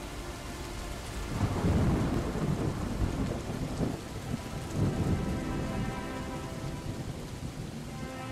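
Steady rain with rolling thunder: a long rumble swells about one and a half seconds in, and a second, shorter one comes near five seconds.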